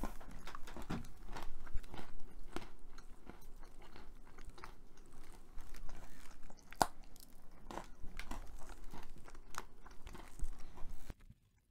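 Crunching and chewing of a chocolate-coated Hershey's cookies 'n' creme dipped pretzel: many crisp crackles one after another, cutting off suddenly near the end.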